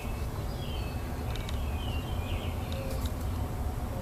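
Birds chirping in the background: a string of short, quick chirps, a few each second, over a steady low hum, with a few faint clicks.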